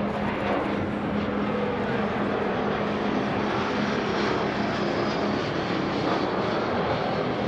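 Aero L-39 Albatros jet trainer's Ivchenko AI-25TL turbofan running overhead in an aerobatic display, a steady jet roar with a faint high turbine whine.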